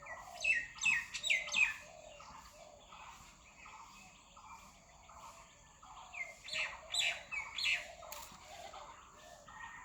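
Birds chirping in two quick bouts of sharp, falling chirps, over a fainter call repeated evenly throughout.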